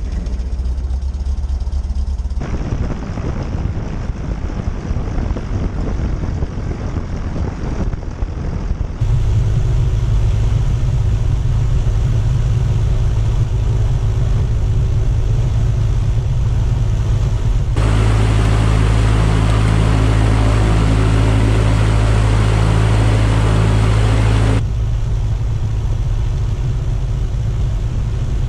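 Cessna 152's Lycoming O-235 four-cylinder piston engine running steadily just after start-up. Its sound jumps abruptly in loudness and tone several times, stepping up about nine seconds in and again near eighteen seconds.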